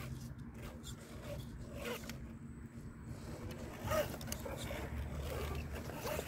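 RC4WD TF2 scale crawler's electric motor and gears whirring in a ratchety zip as it crawls slowly over a wooden board, with its tyres and chassis scraping and one knock about four seconds in as it drops off the board.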